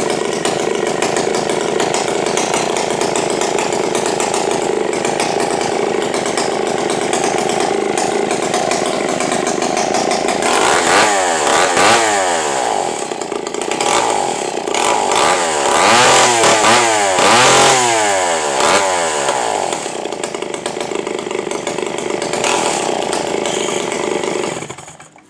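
Stihl 090 two-stroke chainsaw with an aftermarket tuned muffler running: steady at first, then revved up and down several times from about halfway through, and shut off near the end.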